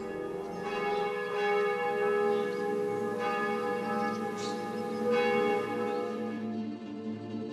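Church bells ringing: several strikes about a second apart, overlapping and ringing on, then dying away near the end, over a sustained music bed.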